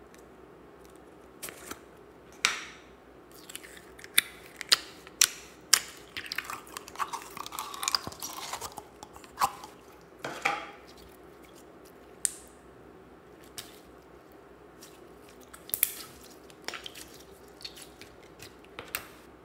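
Gold glitter slime pulled out of its plastic tub and handled: sharp sticky pops and clicks, several about half a second apart, then a run of crackling squelches around the middle, and a few scattered pops near the end.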